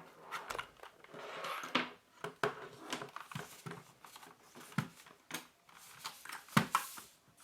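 Polystyrene foam packaging being lifted off and handled, giving irregular scrapes, squeaks and small knocks, the sharpest knocks a little under five and near six and a half seconds in.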